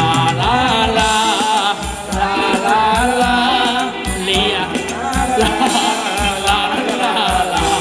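Live Thai ramwong dance-band music played loud over a PA: a singer over a steady drum beat.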